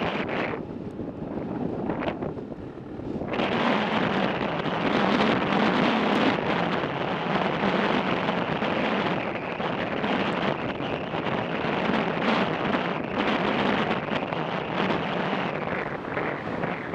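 Wind rushing over the microphone of a moving motorcycle, with the bike's engine running underneath. The rush dips about a second in and builds back up after about three seconds.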